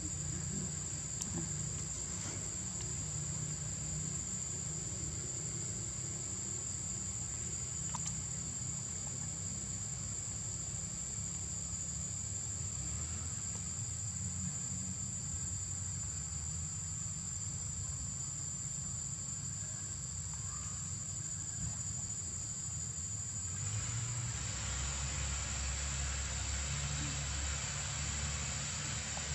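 Steady high-pitched drone of forest insects, with a low rumble underneath; a broader hiss joins in near the end.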